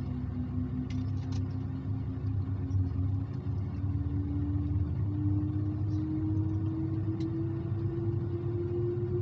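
Airbus A330 cabin noise: a steady low engine and airframe rumble, with a hum that climbs slowly in pitch from about three seconds in. A few faint clicks come from the cabin, near the start and again near the end.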